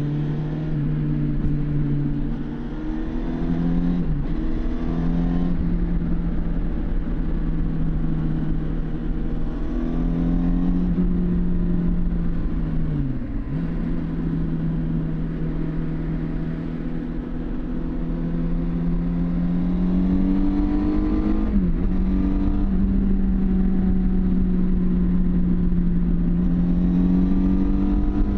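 Suzuki GSX750 Inazuma's inline-four engine with stock exhaust, running under way. Its note climbs slowly in pitch and dips sharply three times, settling lower after the dips as the gear changes.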